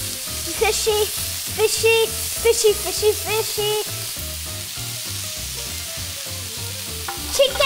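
Strips of pork belly sizzling on a round Korean barbecue grill pan over a portable gas burner: a steady frying hiss.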